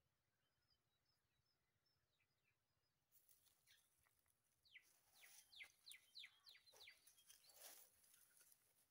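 Faint outdoor ambience with small birds chirping. About three seconds in a light hiss comes up, and a quick run of short downward-sweeping chirps follows about halfway through.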